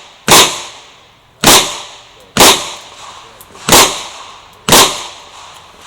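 Five loud revolver shots, roughly a second apart at an uneven pace, each with a short ringing tail: a Chiappa Rhino revolver chambered in .40 S&W firing during a match stage.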